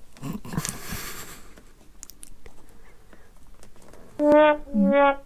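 Faint handling noises of cables and plastic NMEA 2000 plug connectors being fitted: a brief rustle and a few small clicks. About four seconds in, background music with held brass-like notes starts and becomes the loudest sound.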